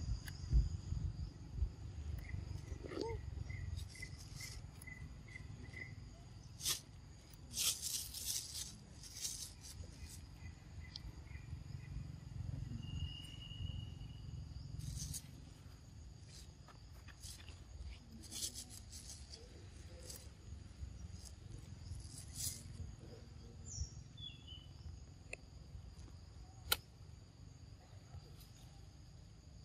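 Steady high-pitched insect chorus in two pitches with a low rumble beneath. Scattered sharp clicks and rustles run through it, and a run of evenly spaced ticks, about two a second, comes a couple of seconds in.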